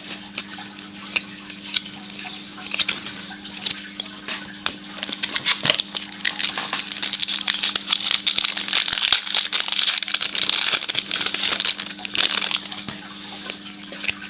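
Baseball card packs and cards being handled: wrappers crinkling and cards rustling, with scattered small clicks, then a dense crackling stretch from about five seconds in to near the end.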